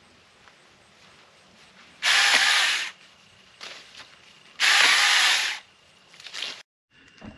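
Small battery-powered electric chainsaw run in two short bursts of about a second each, about two seconds in and again near five seconds, with a shorter burst just after.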